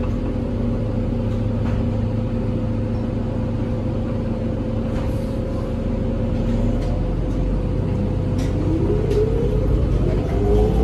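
Interior drivetrain sound of a New Flyer DE60LFR hybrid bus, from its Cummins ISL diesel engine and Allison EP50 parallel hybrid drive: a steady rumble with a constant whine. In the last few seconds a whine rises in pitch as the bus speeds up, with a few light rattles from the body.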